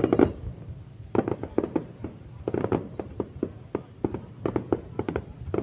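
Fireworks going off: a run of sharp bangs and pops at uneven intervals, often several a second, over a low rumble.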